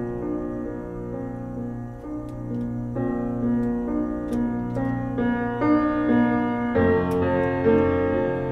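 Calm background piano music, with chords changing every second or two.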